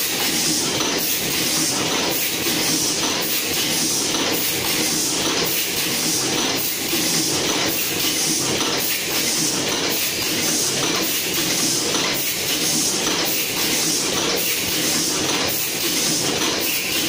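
Automatic facial-mask folding and bagging machine running steadily: a continuous mechanical clatter in a quick repeating cycle, with hiss from its compressed-air actuators.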